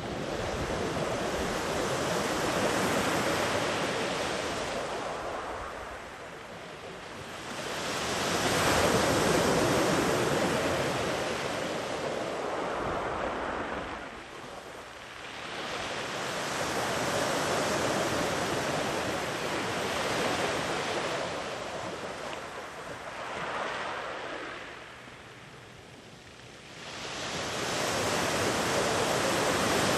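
Ocean waves breaking and washing up a beach, each surge swelling and fading every five to eight seconds.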